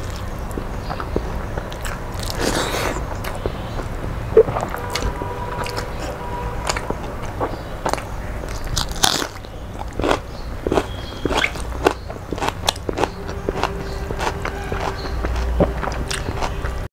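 A person eating by hand: close, wet chewing and biting with many sharp mouth clicks and smacks and a few short crunches.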